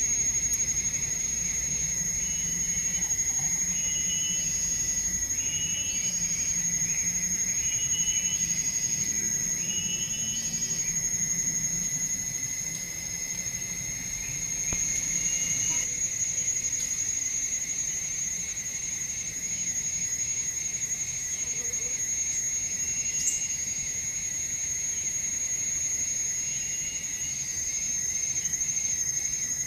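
Insects calling: a steady high-pitched whine, with a short chirping call repeated every second or two through the first half.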